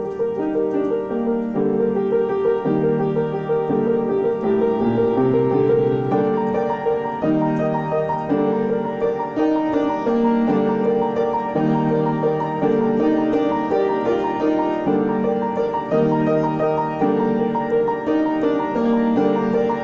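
Piano music: a quick, flowing run of repeated notes over low chords that change every second or two.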